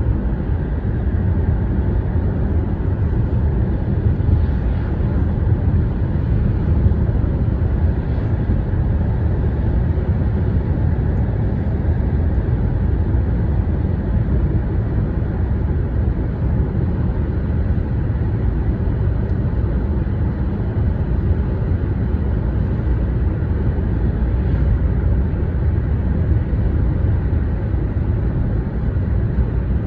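A bridge's steady, loud low rumble, a continuous noisy drone with no distinct strokes or pitch.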